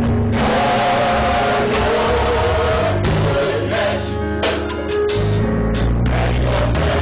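Youth gospel choir singing with instrumental accompaniment, holding long notes together.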